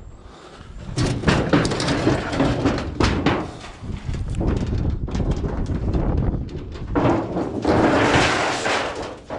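Scrap metal clanking and rattling as pieces are grabbed and handled, with many separate knocks and a longer, denser clatter near the end.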